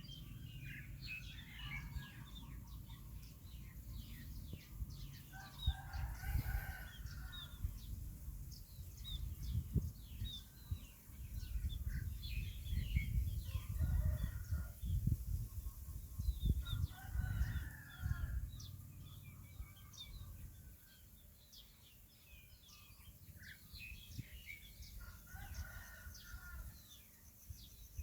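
A rooster crows about four times, each crow lasting about a second, while small birds chirp continuously, over a low rumble.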